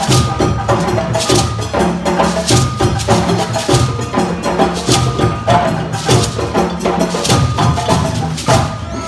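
A group of hand drums, djembes and others, playing an interlocking rhythm together, with a sharp accent recurring a little more than once a second over a deep, steady bass pulse.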